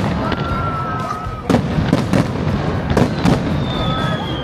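Fireworks bursting over the sea in a rapid series of booms and cracks over a continuous low rumble, with a few thin whistling tones.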